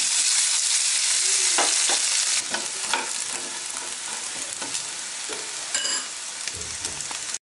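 Boiled potato pieces dropping into hot oil in a frying pan and frying, with a loud sizzle that eases to a steadier, lower sizzle after about two and a half seconds. A spatula scrapes and turns the pieces against the pan now and then.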